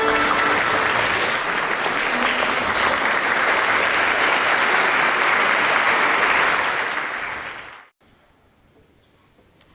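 Concert audience applauding steadily, fading out about seven and a half seconds in, then near silence.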